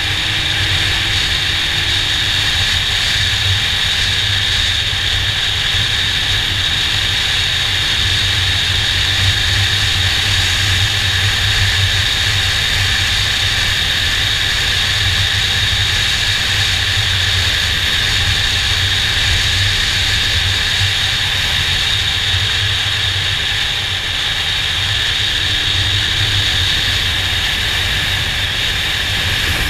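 Motorcycle engine running at a steady cruise while the bike is ridden, mixed with steady wind rushing over the camera's microphone.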